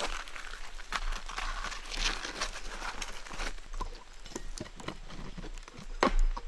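Old asphalt shingles being pried up and torn off a wooden roof by hand: irregular scraping, crackling and knocking. One louder crunch comes near the end.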